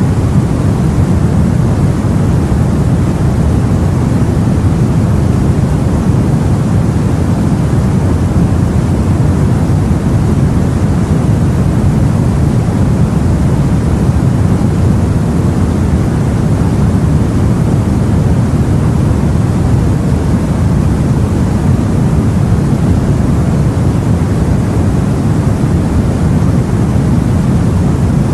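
Steady, low, rumbling sea-and-wind ambience as heard on a boat: a constant wash of noise with no separate waves, splashes or other events.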